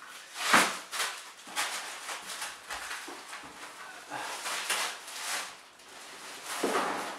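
Plastic and paper wrapping of a rolled, compressed foam mattress rustling and crinkling in irregular bursts as it is pulled off and the mattress is unrolled, the loudest burst about half a second in.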